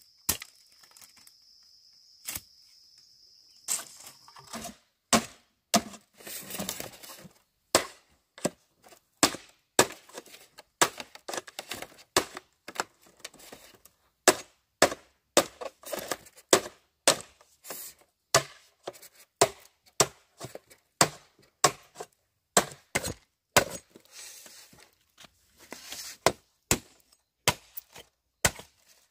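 Repeated sharp chopping strikes on bamboo, about one to two a second with a short pause near the start. Twice between the strikes there is a few seconds of softer scraping noise.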